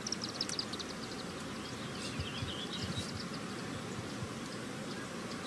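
Hushed open-air background of a golf tee with the spectators silent before a shot: a steady low hiss with faint high chirps, a cluster in the first second and a short warble around three seconds in.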